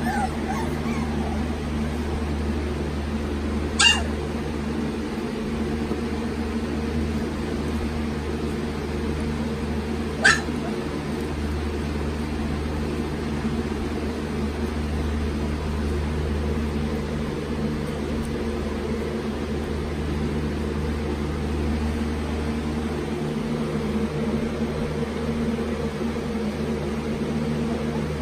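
Young retriever puppies giving two short, sharp squeaks, about four seconds and ten seconds in, over a steady low hum.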